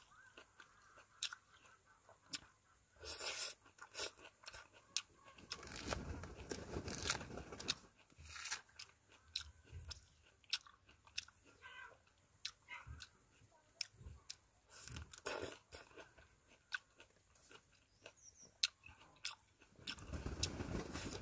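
A person peeling and eating a dekopon mandarin up close: the thick rind and pith tearing in many sharp little snaps, with chewing of the juicy segments in a few longer stretches.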